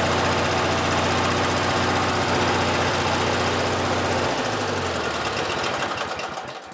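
Riding lawn mower's air-cooled engine running steadily, then slowing with a drop in pitch a little past halfway as it winds down, the sound fading away near the end.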